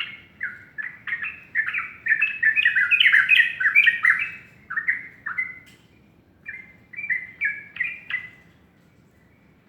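Yellow-vented bulbul singing a quick run of slurred, bubbly chirps, busiest in the first half and thinning out until it stops about eight seconds in.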